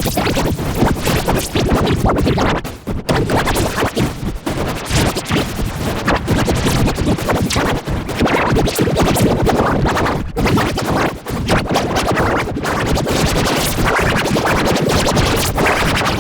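Detergent commercial soundtrack put through heavy editing effects, its jingle and voices chopped into rapid, scratch-like stuttering repeats.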